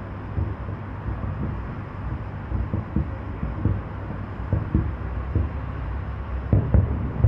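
Distant aerial fireworks shells bursting: a string of irregular low booms over a steady low rumble, with several booms in quick succession near the end.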